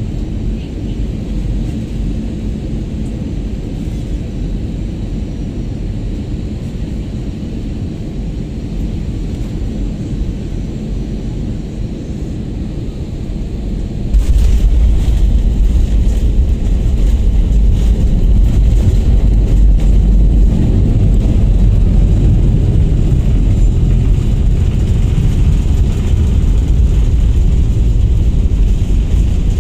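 Airliner cabin noise through a window seat: a steady rush of engines and airflow on final approach. About halfway through the jet touches down and a much louder low rumble of the landing roll sets in and continues as the aircraft rolls along the runway.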